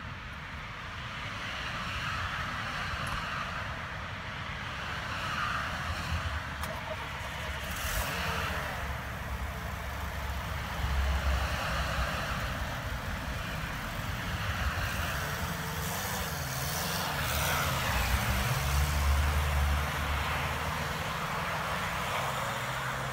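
Supercharged VW hatchback's four-cylinder engine running, then revving up as the car pulls away and drives off, loudest toward the end.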